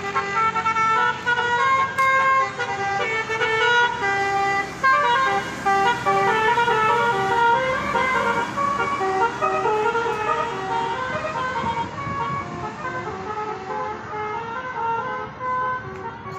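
Tour bus's telolet horn, a multi-tone air horn, playing a quick tune of stepped notes with several pitches sounding together, a little softer in the last few seconds.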